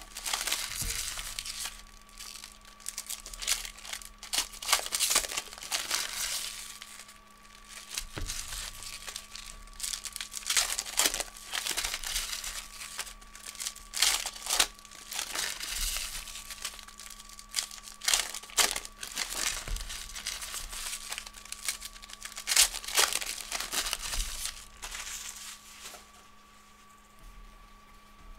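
Foil trading-card pack wrappers being torn open and crumpled by hand, in irregular crinkling bursts that die down near the end.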